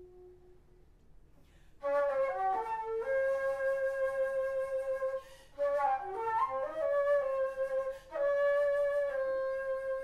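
Solo alto flute: a low held note tails off, and after a short pause the flute plays quick flourishes of notes, each settling onto a long held note, with brief pauses between the phrases.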